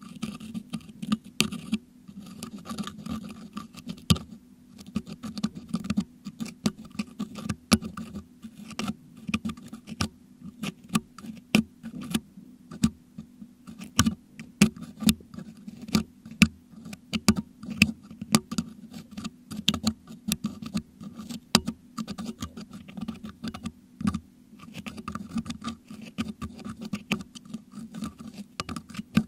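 Metal dental hook picking and scraping crushed meringue out of a Blue Yeti microphone's metal grille, heard close up through that same microphone: a dense, irregular run of sharp clicks and scratches.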